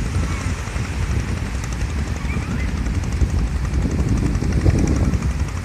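Wind buffeting the microphone on an open seashore: an uneven low rumble that rises and falls without a regular beat.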